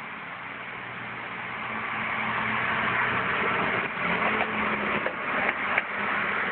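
A few short, sharp knocks on an RV door, about five spread over two seconds, over a steady hum and hiss. Their cause is unexplained: nobody is at the door.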